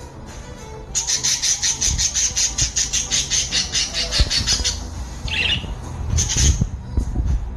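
Budgerigar chattering: a fast run of high, scratchy notes, about eight a second, lasting nearly four seconds. A short chirp follows, then a brief second run of notes near the end.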